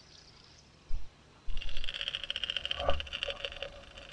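Spinning reel being cranked to reel in: a fast, even whirring tick that starts abruptly about a second and a half in, after a short knock near the one-second mark.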